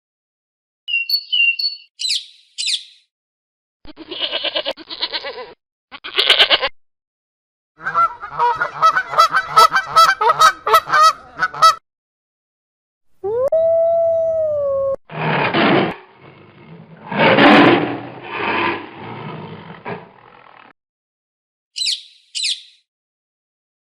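A string of separate animal calls with short silent gaps between them. Brief high chirps come about a second in and again near the end. In between come two short pulsed calls, a fast run of repeated calls, one long call that bends in pitch, and then louder, rougher calls.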